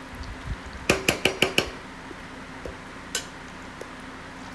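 Metal spatula clinking against a metal pressure-cooker pot while stirring thick chicken curry: a quick run of about five knocks about a second in, and one more a couple of seconds later.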